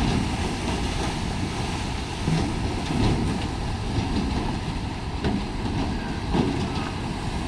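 Cattle splashing and churning through shallow river water as they jump down from a wooden livestock barge, with a few sharper knocks and splashes over a steady low rumble.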